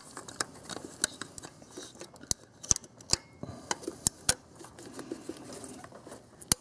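Pliers working at a coolant hose and its clamp on an engine, making irregular sharp metallic clicks and taps.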